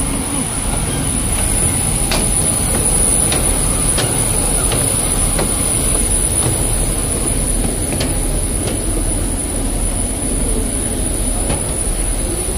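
Steady roar of aircraft noise on the apron with a constant high-pitched whine, and a few scattered footfalls on the metal boarding stairs.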